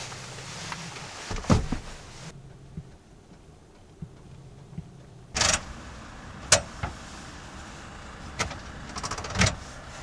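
A handful of sharp clunks and clicks from seat fittings and gear being handled inside a camper van, the loudest about six and a half seconds in, over a low steady hum.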